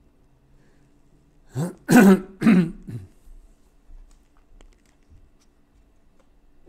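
A man clearing his throat: three short rough bursts close together about two seconds in, the second and third the loudest. A few faint clicks follow.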